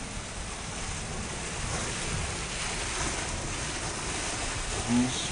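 Rainwater gushing from a drainpipe outlet and splashing across a concrete floor, a steady rushing. A short voice breaks in near the end.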